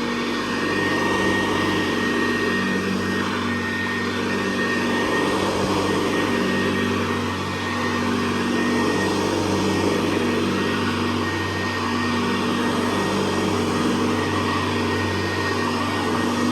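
Hoover Convertible Model 68 upright vacuum cleaner running while vacuuming: a steady motor hum with a thin, steady high whine. The loudness dips slightly a couple of times.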